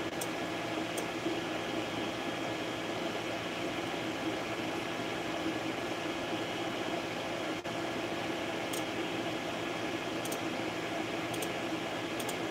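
FDM 3D printer running a print: the print head's cooling fans whir steadily under the hum and whine of the stepper motors moving the head, with a few faint high clicks. The sound drops out for an instant a little past halfway.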